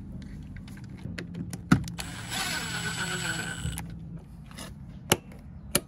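A screwdriver driving screws into the plastic enclosure of a rapid shutdown button: a whirring for about two seconds in the middle, with a few sharp clicks and taps of the tool against the box.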